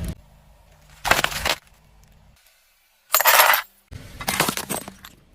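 Plastic objects cracking and crunching under a car tyre as they are crushed, in three separate bursts with sudden stops between them.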